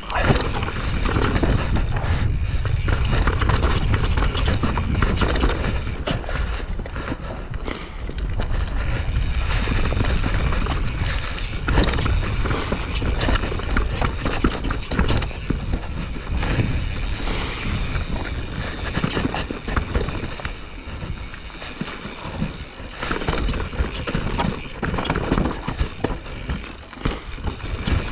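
Mountain bike riding fast down a rough dirt and root singletrack: tyres rolling and the bike rattling and knocking over bumps, under a heavy rumble of wind on the camera microphone.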